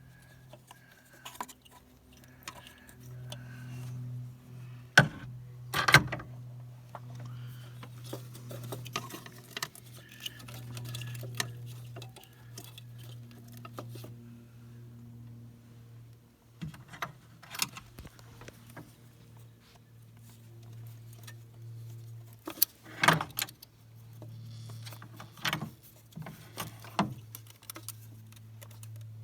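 Metal hand tools and hose clamps clinking and knocking during removal of a diesel van's fuel filter: scattered sharp clicks with a few louder knocks, the loudest about five seconds in and again late on, over a steady low hum.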